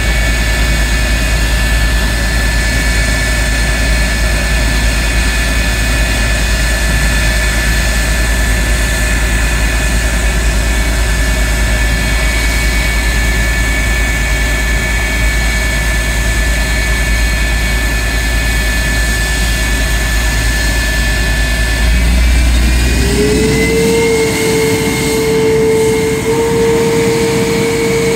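Lockheed CF-104D Starfighter's J79 turbojet running on the ground at a steady setting, a loud steady roar with a high whine. About 22 seconds in, the whine rises in pitch and a lower steady tone joins it as the engine setting changes.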